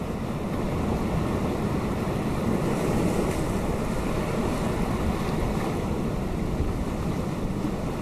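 Ocean surf breaking on a rocky shore: a steady rushing wash of waves that swells slightly about three seconds in.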